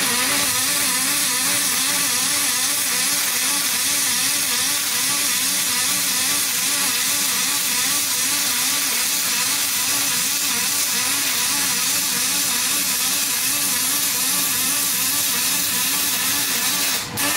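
MIG welding arc on aluminium from a Grovers Energy MIG 200 set running in double-pulse mode: a steady hiss with a regular wavering a few times a second, which comes from the double pulse. The arc stops near the end.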